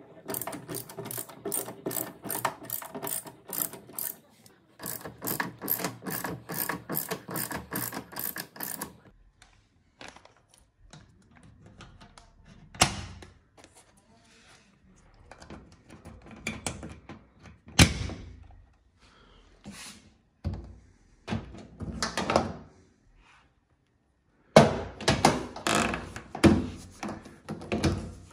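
Rapid mechanical clicking, like a ratchet, in two runs of about three clicks a second, followed by scattered knocks and rattles.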